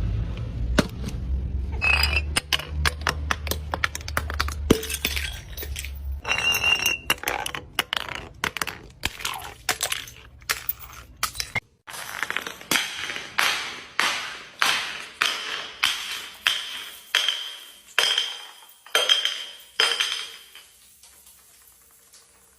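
Glass crunching and clinking: a dense run of sharp cracks over a low hum, then, after an abrupt cut about halfway, a steady series of sharp strikes, about one and a half a second, each with a brief glassy ring. The strikes stop shortly before the end.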